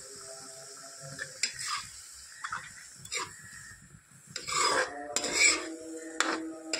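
A spatula and fork scraping and stirring thick curry in a metal kadhai: a few short scrapes, then a louder, longer stretch of scraping a little past the middle.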